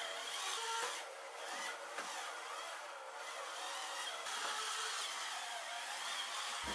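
Electric bathroom spin scrubber running: a steady small-motor whine with the spinning brush head rubbing and scrubbing against the bathtub surface.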